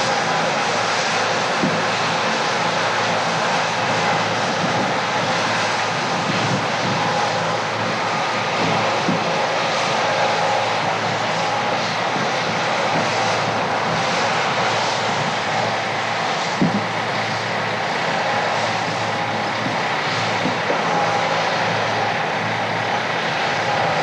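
Steady drone of a John Deere 8820 combine's diesel engine and threshing machinery running under load while harvesting soybeans, with one short knock about two-thirds of the way through.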